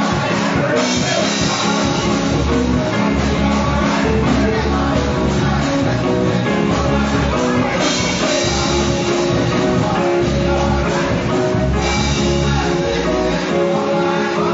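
Church choir singing a lively gospel song over loud instrumental accompaniment with a deep bass line.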